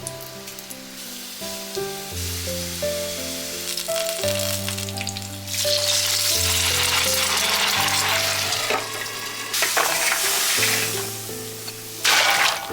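Food frying in hot oil in a pan, a steady sizzle that gets much louder about halfway through and eases off near the end, over background music.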